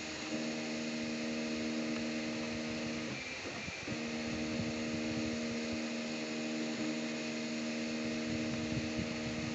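Anet A6 3D printer printing in PLA: its stepper motors whine at a few steady pitches over a constant hiss. The whine stops for under a second about three seconds in, with a few faint ticks, then resumes.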